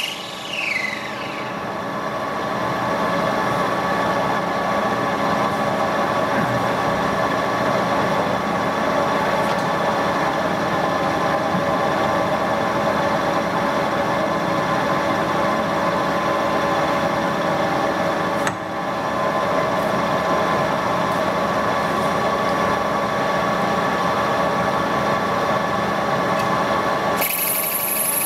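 Metal lathe running steadily with a held gear whine, while a tool faces the end of a spinning round bar and a center drill bores into it from the tailstock chuck. The sound breaks off briefly about two-thirds of the way through.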